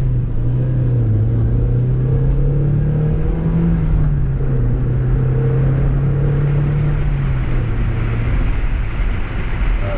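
1999 Mazda Miata's four-cylinder engine running on the road, with road rumble; its pitch rises a little about three seconds in and drops near the end. The car has a misfire that makes it shake and lose power at full throttle.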